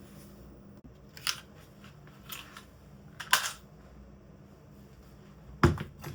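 Four separate sharp clicks and knocks of small parts being handled, the last one near the end the loudest, over a steady low hum.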